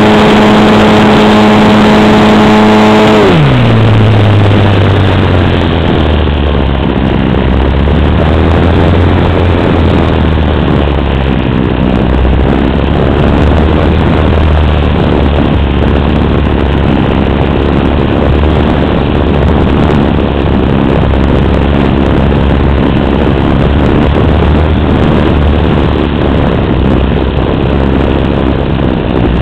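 Wind rushing over a radio-controlled glider and its onboard camera in flight. A steady whine over the wind drops sharply in pitch about three seconds in and gives way to a low steady hum.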